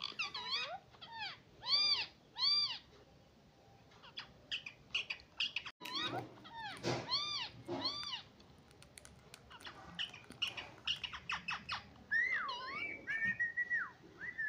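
Indian ringneck parakeet calling: runs of short, rising-and-falling squawky notes, with a quieter gap a few seconds in, then longer whistled notes near the end, mixed with light clicks.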